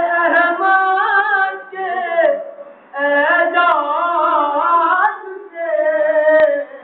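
A man's solo voice chanting a devotional naat, unaccompanied, in three long ornamented phrases that waver in pitch, with short breaths between them. A single sharp click sounds near the end.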